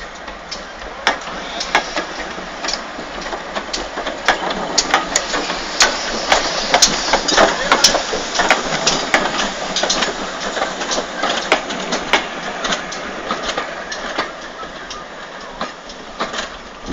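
GWR small prairie tank locomotive and its autocoaches passing close by, with many sharp irregular clicks and clanks of wheels and running gear over the track. The sound swells to a peak about halfway through and eases off towards the end.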